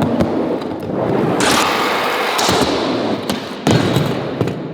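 Skateboard with CNC-machined metal wheels rolling on concrete, a rough crackling rumble. A bright hissing scrape starts about one and a half seconds in and lasts about a second, then sharp knocks of the board come near the end.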